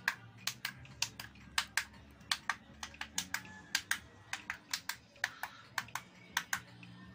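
Newly fitted tact switches behind the front-panel buttons of a Yamaha RX-V363 AV receiver clicking as the buttons are pressed one after another, about three sharp clicks a second in an uneven rhythm. Each switch is being pressed to test it after the replacement.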